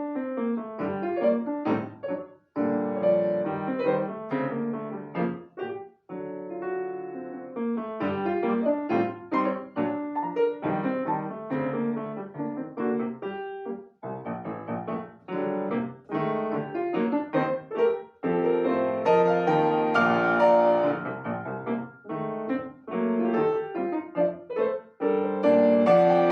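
Solo acoustic piano playing a classical piece: short detached chords and running notes with brief breaks, growing fuller and louder in the last third.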